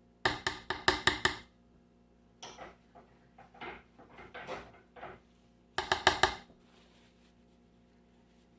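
Spoon scooping dry plaster powder and knocking against its container. There are two quick runs of rapid clicks, one about a second in and another about six seconds in, with softer scooping scrapes between them.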